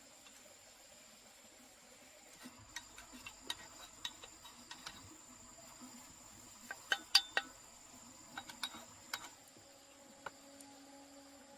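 A run of irregular sharp clicks and knocks, loudest and closest together about two-thirds of the way through, over a faint steady high-pitched whine.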